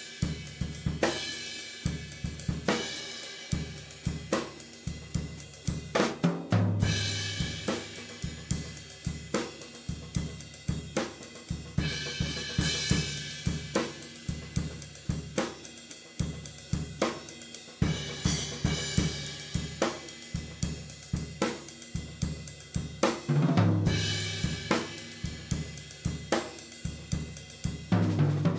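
Drum kit playing a steady beat on bass drum, snare and hi-hat, with a cymbal crash every five or six seconds.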